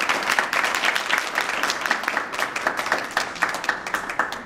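A small group applauding with quick hand claps, thinning out toward the end.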